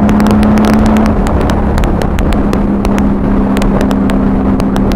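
Honda Valkyrie flat-six running steadily at riding speed through Cobra six-into-six pipes, heard from a helmet-mounted microphone. Wind buffets the microphone with frequent sharp crackles.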